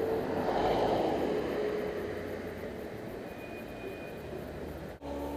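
Distant vehicle rumble in city ambience, swelling in the first second and then slowly fading away.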